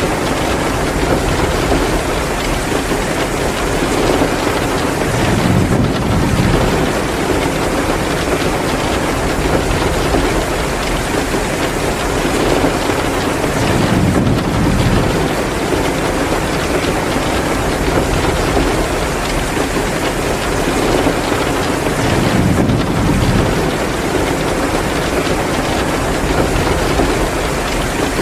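Heavy, steady downpour, with a deeper rumbling swell three times, roughly every eight or nine seconds.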